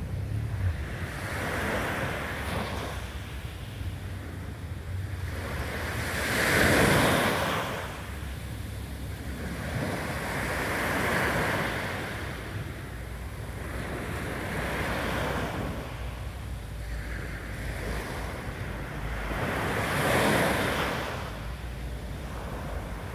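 Small waves on a calm sea breaking and washing up a sandy beach, the surf swelling and fading about every four to five seconds. The loudest wash comes about a third of the way in, and another strong one near the end.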